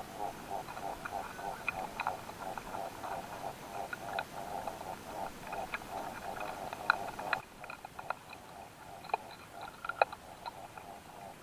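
Close-miked quail stink bugs on a grass seed head: scattered sharp clicks and scratches of their legs on the stalk, the loudest about seven and ten seconds in as a third bug crawls up to the mating pair. Under them runs a steady pulsing background of about five beats a second.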